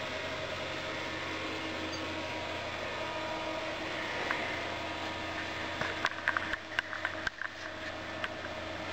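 Steady hum and hiss of a running computer's fans, with a few faint steady tones in it. About six seconds in comes a quick cluster of light clicks and knocks lasting about two seconds.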